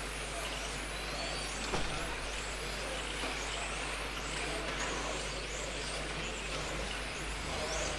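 Electric 1:10 RC touring cars racing, their motors giving many overlapping high whines that rise and fall in pitch as they speed up and slow down. A sharp knock comes about two seconds in.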